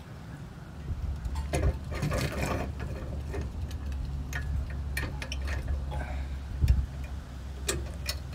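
Scattered metal clicks and clanks as the steel mast of a Jack-It bike rack is handled and seated into its mount, over a steady low rumble.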